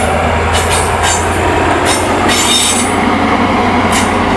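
Model HST train running on the layout's track: a steady motor hum under rolling wheel noise, with short high-pitched squeals breaking in at irregular intervals.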